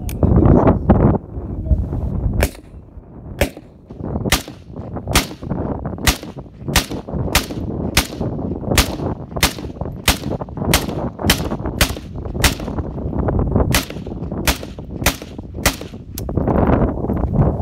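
Kalashnikov-pattern assault rifles firing single shots in steady succession, about two a second, starting a couple of seconds in and stopping shortly before the end. A low rumbling noise comes before the first shot and returns near the end.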